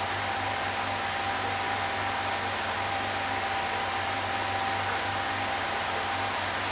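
Steady whirring of a 3D printer's cooling fans, with a constant thin whine over it.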